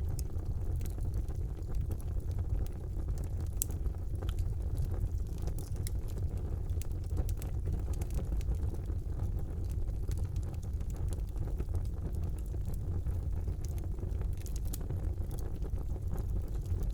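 Fire burning in a fireplace: a steady low rumble of flames with irregular sharp crackles and pops scattered throughout.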